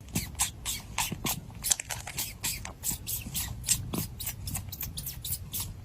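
A pet chewing: rapid, irregular crunchy clicks, several a second.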